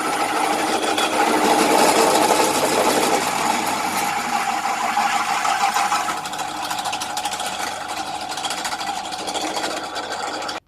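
Titan pillar drill running under load, a 13mm twist drill bit cutting through 4mm mild steel plate with a steady grinding, rasping sound over the motor's hum. It is loudest in the first half and eases a little about six seconds in.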